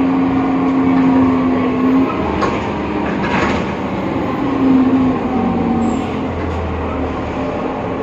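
BredaMenarini Avancity Plus city bus running, with a humming whine over its running noise that holds for a couple of seconds, fades, and returns twice slightly lower in pitch: the strange sound this bus makes.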